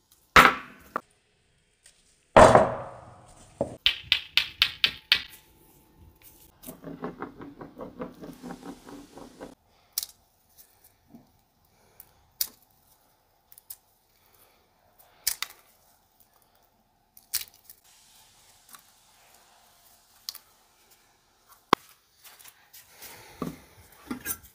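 A frozen egg knocked hard twice on a wooden cutting board, then its shell crackling in quick runs of small cracks as it breaks up. After that, sparse single clicks and snaps as pieces of shell are peeled away, with a cluster of small rustling clicks near the end.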